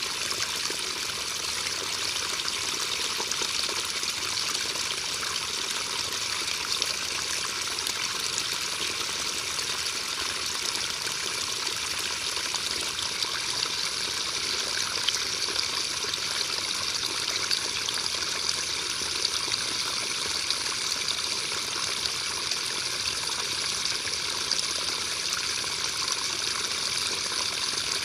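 Steady rain falling: an even, dense hiss of drops with occasional slightly louder single drop ticks.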